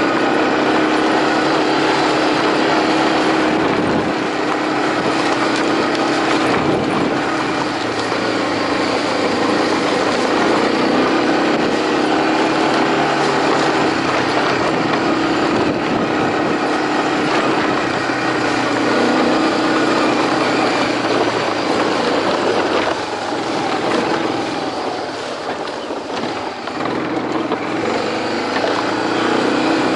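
A small engine running steadily under way, its pitch wavering a little and easing off briefly a little past the middle.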